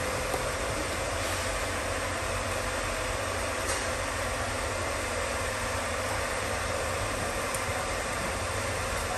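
Steady background rumble and hiss with a faint steady hum, no distinct events.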